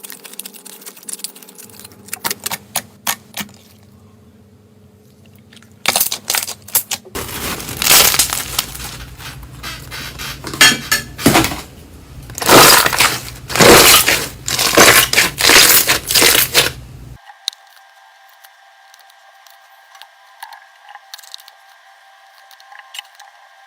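Slime being squeezed and pressed by hand, a series of short, loud crackling and popping bursts with clicks, made up of several spliced clips. The loudest crackling comes in the middle; it turns much quieter for the last few seconds.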